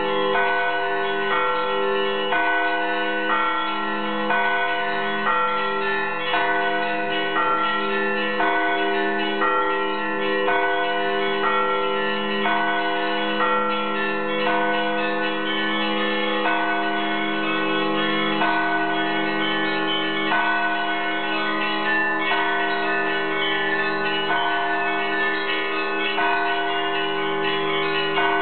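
Russian Orthodox church bells rung by hand from ropes in a continuous peal. Small bells are struck in a quick, repeating rhythm over the long ring of larger bells.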